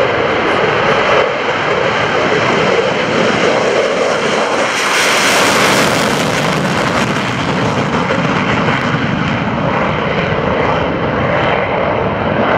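A Thunderbirds two-seat F-16D jet taking off in afterburner. A loud steady roar sharpens and grows hissier about five seconds in as the jet passes, then eases as it climbs away.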